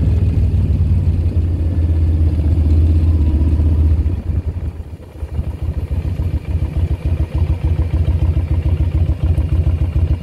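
Motorcycle engine running under way, then shut down to a lower, pulsing idle about four seconds in as the bike comes to a stop.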